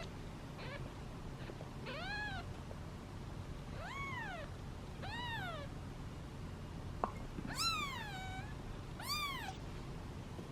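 Hungry British Shorthair kittens meowing for food: about six short meows a second or two apart, each rising then falling in pitch. The one just before the end is the loudest and longest, sliding down as it trails off, and a single sharp click comes just before it.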